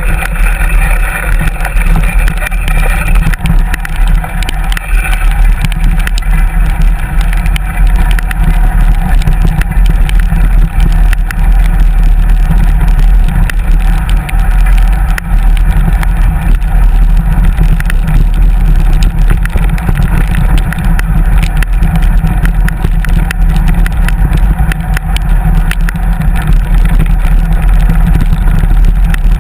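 Wind buffeting a GoPro's microphone on a moving bicycle, a loud, steady low rumble mixed with tyre and trail noise.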